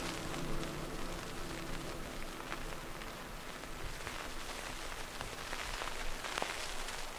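Background noise layer of an ambient dub techno track played on an Akai Force: a steady hiss with scattered crackles like rain. A sustained chord fades out in the first second.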